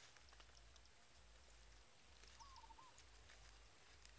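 Near silence with scattered faint ticks, and a faint, short, three-part chirping call a little past halfway.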